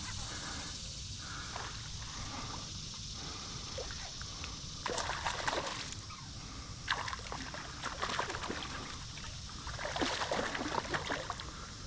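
Water sloshing and splashing in a few short, irregular bursts, over a steady low hiss of creek flow.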